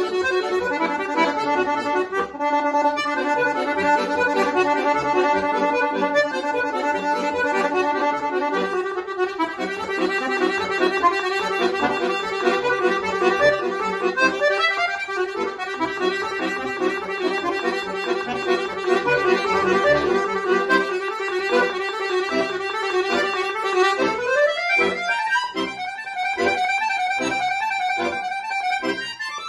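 Solo accordion playing a fast piece, with held chords over a moving bass line. Near the end a quick upward run of notes leads into a string of short punched chords, about two a second, building to the finish.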